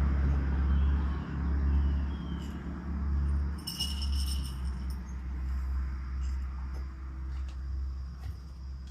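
A low rumble that fades away over several seconds, with a brief metallic ringing jingle about four seconds in and a couple of short high chirps.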